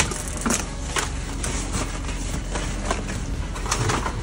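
Irregular knocks, clicks and scrapes of handling in a car's boot: the boot floor cover lifted and the steel spare wheel in its well touched, over a steady low hum.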